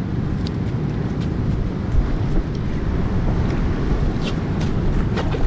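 Strong wind buffeting the microphone in a steady low rumble, with surf from a rough sea mixed in. A few faint sharp clicks sound over it.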